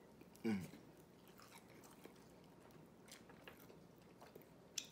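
Faint chewing and biting on sauced fried chicken wings close to the microphone, with small wet clicks. About half a second in, a short falling hum from the eater's voice, and a sharp lip-smack or crunch near the end.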